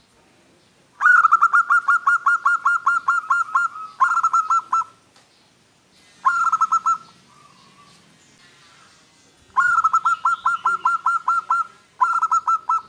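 Zebra dove (perkutut) singing its cooing song: bursts of rapid, evenly repeated clear notes at about five a second. There is a long run about a second in, two short phrases after it, and another long run followed by a short one near the end.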